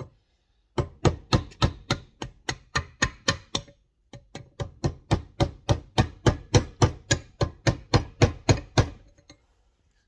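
A fast, even series of sharp knocks, about three to four a second, in two runs with a brief pause about four seconds in. This is work on the brake master cylinder to knock out its stuck internal parts.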